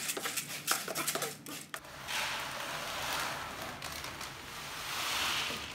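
A plastic scoop rattling and scraping through pellet cat litter in a plastic tray, then, about two seconds in, a steady rushing hiss of litter pellets pouring from a bag into a tray, swelling twice before it stops.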